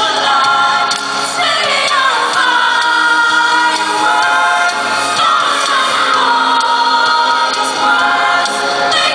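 Mixed choir of male and female voices singing in harmony, holding chords with a falling swoop in pitch about every three seconds.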